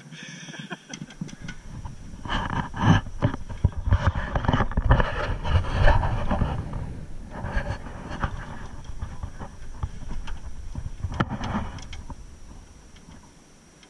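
Low rumbling noise with many scattered knocks and clatter as people and gear move about in an aluminum rowboat, loudest in the first half and dying away near the end.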